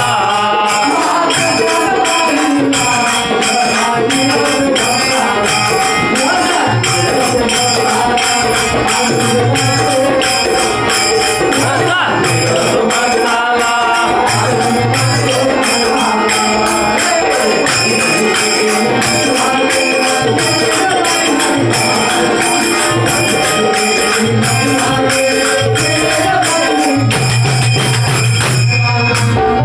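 Marathi devotional bhajan: a man singing over a dholki hand drum and jingling metal percussion keeping a steady beat, with the low drum strokes coming thicker near the end.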